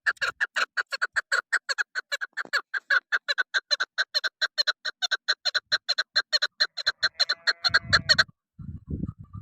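Female chukar partridge calling: a fast, even run of short clucking notes, about five or six a second, that stops abruptly about eight seconds in. A few low thumps follow near the end.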